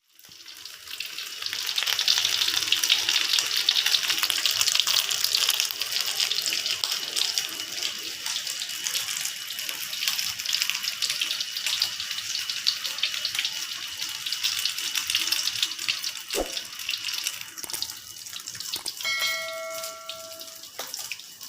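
Eggs frying in hot oil in a pan: a dense crackling sizzle that eases a little after the first several seconds. A brief steady tone sounds near the end.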